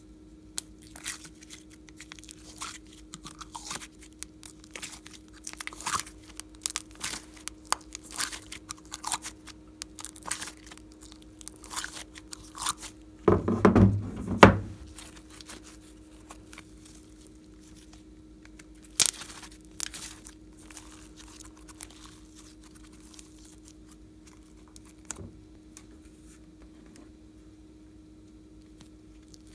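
Hard plastic slime containers being handled, with a run of small clicks and crackles. About halfway through comes the loudest sound: thick slime squished in the hand. A faint steady hum sits underneath.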